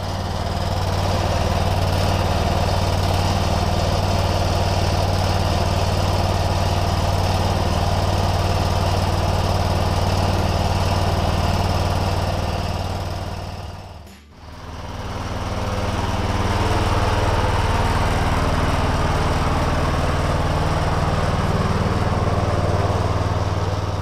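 John Deere 214 garden tractor's single-cylinder engine running steadily. The sound drops out for a moment about fourteen seconds in, then comes back.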